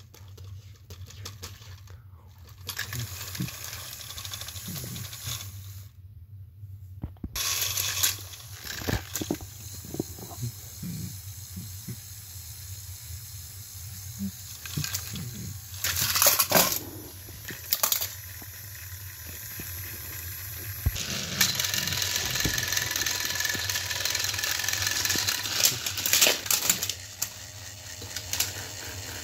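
Plastic toy trains and track pieces being handled: scattered clicks, knocks and clatter, with a steady hiss for several seconds near the end.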